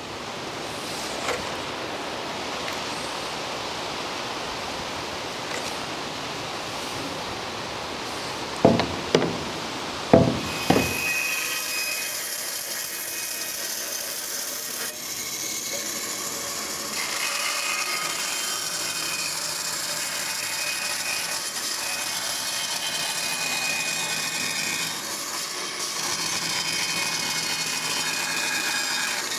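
Band saw running and cutting a curved line through a timber plank, sawing out a trial boat frame, from about 11 seconds in. It is a steady machine sound with the blade rasping through the wood. Before it, a quieter rustling noise and four sharp knocks in quick succession.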